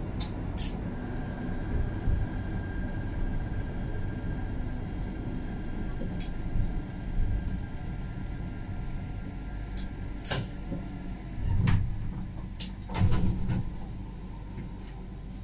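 Tram heard from inside the driver's cab as it pulls away from a stop and runs along the track: a steady low rumble with a faint steady whine, a few sharp clicks, and two heavier clunks near the end.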